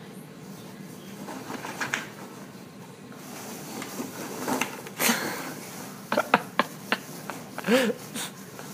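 Styrofoam packing peanuts rustling and clicking in a cardboard box as a small animal burrows through them, the sharp clicks coming thickest toward the second half. A short pitched sound that bends up and back down comes near the end.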